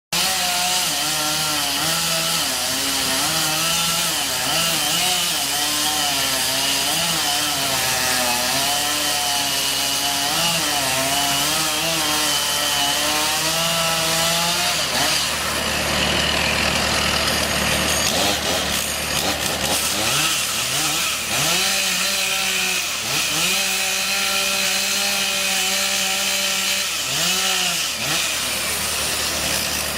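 Chainsaw running at high speed, its pitch wavering through the first half, then revved up and down again and again in the second half.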